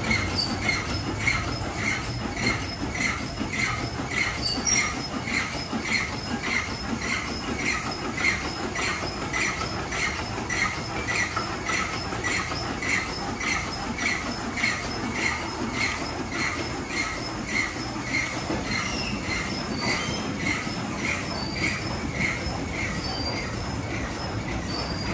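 Water Wizard touchless car wash machine running a wash cycle: a steady hiss under a high squeak and click that repeats about twice a second.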